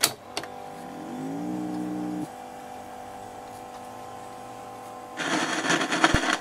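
Aiwa TP-719 reel-to-reel tape recorder switched into play: a sharp click of the control key, then the transport motor running with a steady hum, and a whir that rises in pitch, levels off and cuts out about two seconds in. No recorded sound comes back, the test recording having failed to play back. A louder crackly rustle with clicks comes near the end.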